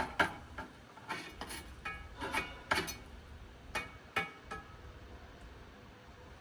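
Utensils clinking against a dish: about a dozen light, ringing strikes in irregular succession, stopping a little over four seconds in.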